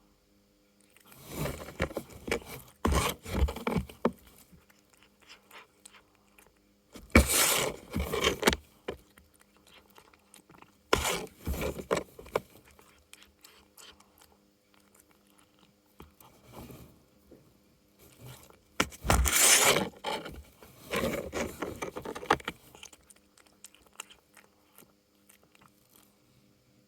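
Cats pawing and scratching at a cardboard food toy: scraping and rustling cardboard in irregular bursts of a second or two, several seconds apart.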